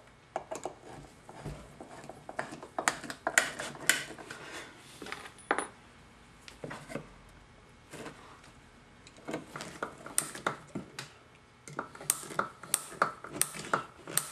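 Wood screw being driven by hand with a screwdriver into a pine board: irregular metallic clicks and taps, with a quieter stretch around the middle and denser clicking in the last few seconds.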